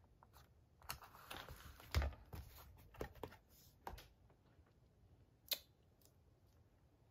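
Paper being handled on a junk journal page: a short rustle and slide of paper with a scatter of light taps and clicks, and one soft thump about two seconds in as the hand presses the paper down. A last sharp tap comes a few seconds later.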